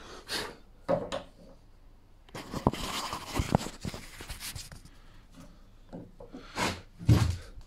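A brass door hinge being handled and set against the wooden door edge: scattered clicks, rubbing and a few sharper knocks of metal on timber, with two of the loudest knocks near the end.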